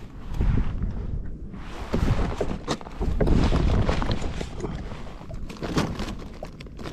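Wind rumbling on the microphone and water around a kayak hull, with irregular rustling and knocks as a fabric fish bag on the deck is handled and zipped.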